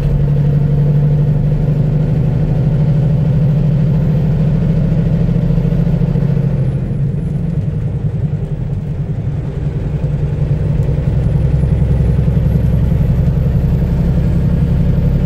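Semi-truck's diesel engine heard from inside the cab, running steadily while driving. The engine note eases off for a few seconds in the middle, then picks back up.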